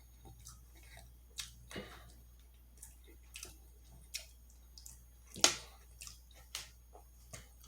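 Close-miked chewing with wet mouth clicks and soft lip smacks, irregular and scattered, with one louder smack about five and a half seconds in.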